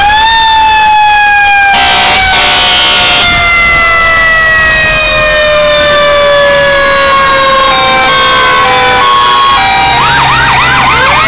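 Fire truck sirens in a parade. One siren winds up and then slowly winds down, its pitch falling steadily for about nine seconds, with a brief burst of noise about two seconds in. Near the end, another siren starts in fast, repeated rising sweeps.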